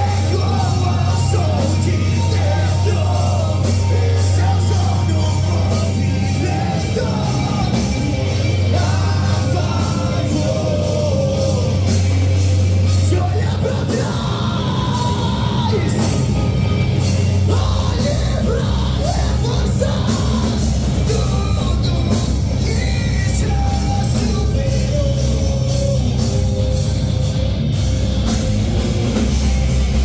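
A live heavy rock band playing loud: distorted electric guitars, bass and rapid drums and cymbals, with a singer's shouted vocals over them, heard from within the crowd.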